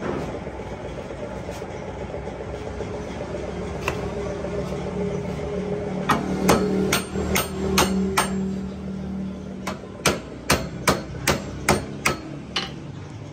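Hand hammer striking the steel ball-joint housing of a truck tie rod end clamped in a vise under a screw press: sharp metallic blows, about six in a row roughly 0.4 s apart, a short pause, then about eight more at the same pace. A steady low hum runs under the first series.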